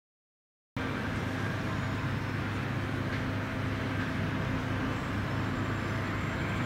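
Steady low outdoor rumble with a faint hum, cutting in suddenly from silence under a second in, with one faint knock about three seconds in.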